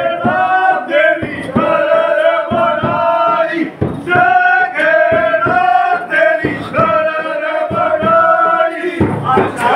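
A group of men singing a loud chant-like song together, in phrases about a second long, with a few sharp strokes on a dap frame drum between them.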